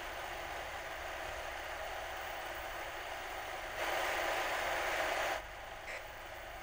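Steady hiss of static. About two-thirds of the way through it grows louder for a second and a half, then cuts off suddenly, leaving a fainter hiss.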